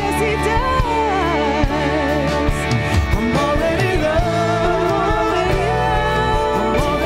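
Live worship band music: sustained chords with a wavering sung melody line over them.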